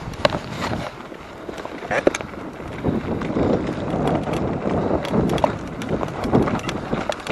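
Mountain bike being ridden over a wet, leaf-covered trail: a rough rolling rustle with scattered sharp clicks and knocks from the bike.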